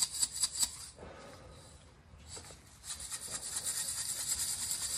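Small pieces of cut copper wire rattling and scraping inside a glass bottle as it is shaken with a little water, scouring stains off the inside of the glass. The rattles come in quick, even strokes, stop for a couple of seconds about a second in, then start again faster.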